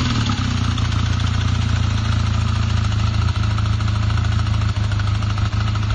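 1986 Honda Rebel's parallel-twin engine settling back down from a rev at the start, then idling steadily.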